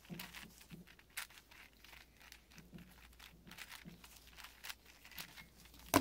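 Plastic clicking and clacking of a 6x6x6 Rubik's cube as its layers are turned in quick succession, with a sharper click near the end.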